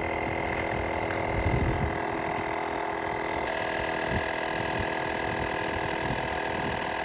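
Small portable air compressor running steadily, a constant motor hum and whine as it pumps up a flat car tire. A couple of dull bumps come through about a second and a half in and again around four seconds.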